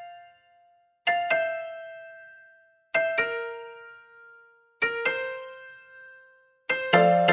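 Background music: a piano-like keyboard plays short phrases of struck notes that ring out and fade, one about every two seconds. Near the end a fuller backing with a bass line comes in.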